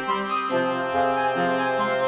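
Background music: sustained keyboard and brass-like instrumental notes changing in steps.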